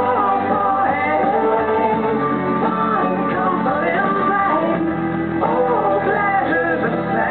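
Recorded song with a singing voice over steady backing instruments.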